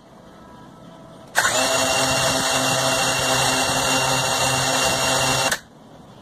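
C-Fly Faith 2 quadcopter's brushless motors and propellers spinning at idle for about four seconds, starting abruptly about a second in and cutting off suddenly: a motor test right after the drone has bound to its controller.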